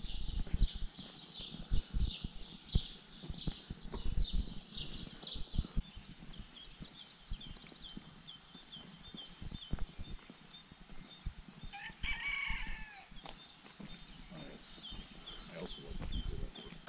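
A rooster crows once, about a second long, around twelve seconds in, over small birds chirping in quick repeated phrases. Low knocks of walking footsteps run underneath.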